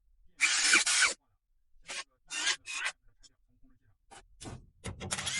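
Irregular rasping scrapes, like something rubbing or filing against a hard surface. A loud one comes about half a second in and lasts most of a second, then several short strokes follow, running into near-continuous scraping near the end.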